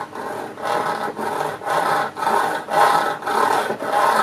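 A hand tool cutting back and forth in even strokes, about two a second, rasping against metal and wood: the protruding screw ends being trimmed off flush.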